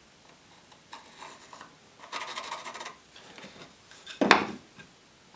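Wood scraping and rubbing against wood in short strokes, with one sharp knock about four seconds in.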